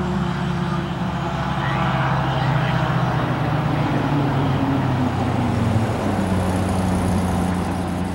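Fire engine's diesel engine pulling away under load, its pitch rising and settling as it accelerates, over tyre and road noise.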